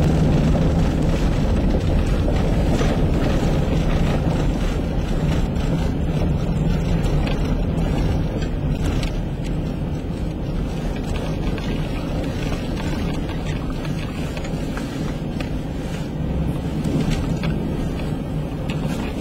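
Strong winter wind buffeting the microphone, a loud steady rumble that eases slightly toward the end.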